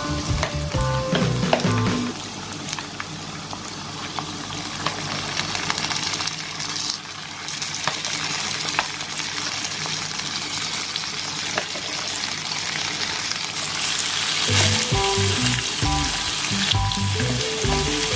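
Marinated chicken pieces sizzling and crackling in hot oil with sautéed onions and garlic in a nonstick pan. Background music plays briefly at the start and comes back about two-thirds of the way in.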